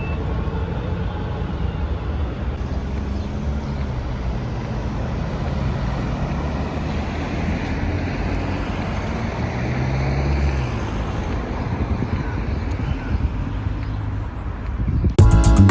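City street traffic noise: a steady hum of road traffic with a low rumble that swells briefly about ten seconds in. Near the end, loud music cuts in abruptly.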